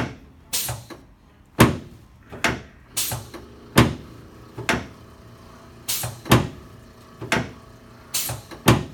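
A quick, irregular series of sharp knocks on a chiropractic treatment table, about two a second, some in close pairs, each with a short ringing tail, as the chiropractor works on a patient lying face down.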